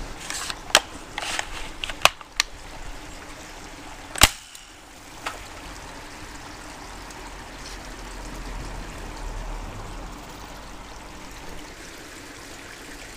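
A handful of sharp clicks and knocks over the first five seconds, the loudest about four seconds in, from handling the plastic rocket fishing rod and tackle. After that, the steady low wash of flowing creek water.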